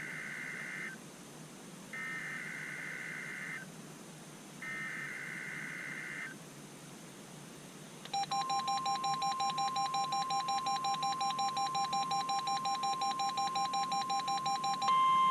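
NOAA Weather Radio Required Weekly Test signal: three short bursts of warbling SAME data tones about two seconds apart. After a few seconds' pause comes a steady 1050 Hz warning alarm tone with a rapidly pulsing electronic beep over it, and the tone grows louder near the end.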